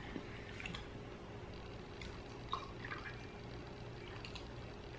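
Coconut water poured from a carton into a drinking glass in a thin, faint trickle, with a few light clicks of the carton being handled.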